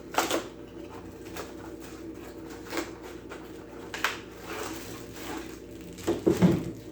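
Scattered clicks and knocks of objects and packaging being handled, about five in all with the loudest cluster near the end, over a faint steady low hum.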